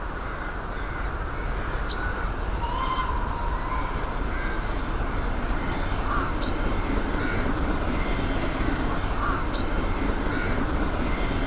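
Steady rumbling noise of a train at a platform, with a few short, high bird-like calls over it.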